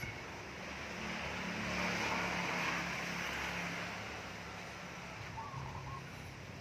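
A motor vehicle passing by: its engine hum and tyre noise swell to a peak about two to three seconds in, then fade away.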